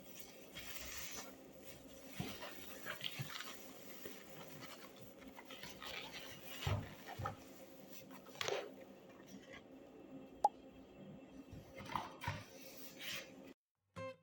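Faint everyday handling noises in a small room: scattered short rustles and scrapes, a sharp click about ten and a half seconds in, and a faint steady hum underneath.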